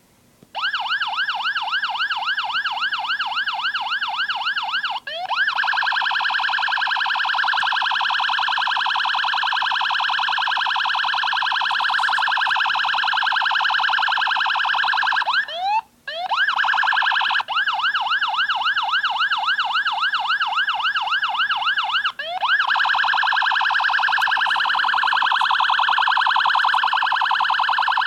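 Electronic police siren sounding through a speaker, switching between a yelp of quick rising-and-falling sweeps, about four or five a second, and a much faster trilling warble. It changes tone with short breaks about 5 s, 16 s and 22 s in.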